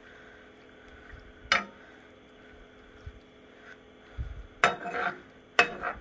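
A metal spoon stirring and scraping shredded chicken around a frying pan, with a sharp clack of metal on the pan about a second and a half in and a quick run of louder scrapes and knocks near the end.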